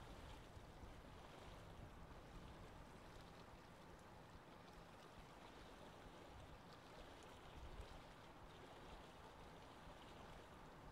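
Faint, steady noise of wind and choppy sea water.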